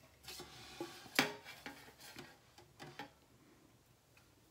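Light knocks and clicks of a stainless-steel home oil press being handled and turned around on a wooden tabletop, about half a dozen, the loudest about a second in.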